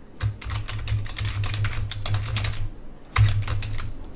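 Food containers and packaging being handled on a tabletop: rapid crackling clicks over dull low bumps, pausing briefly and starting again about three seconds in.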